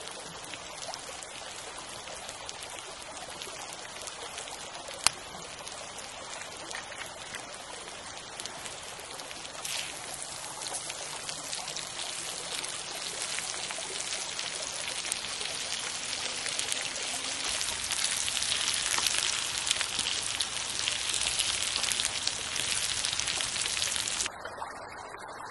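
Running water, a steady splashing rush with one sharp click about five seconds in; it grows louder through the second half and cuts off suddenly near the end.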